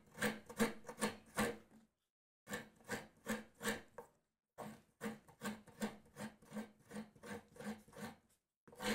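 Half a coconut scraped by hand against a serrated coconut scraper blade, making repeated rasping strokes about two to three a second. Two short pauses break the strokes into runs.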